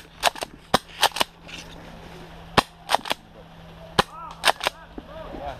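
Airsoft guns firing about a dozen sharp single shots, several in quick pairs or threes, in short clusters with gaps of about a second between them.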